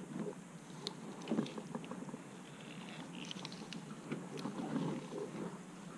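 Faint, irregular handling noises: scattered light metallic clicks and taps with soft rustling as gloved hands work a socket extension and ratchet on a motorcycle's spark plugs.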